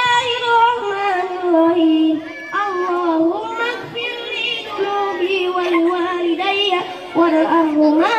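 A boy singing solo into a microphone, amplified through a loudspeaker: a melodic line with notes held for up to a second and gliding, wavering turns between them.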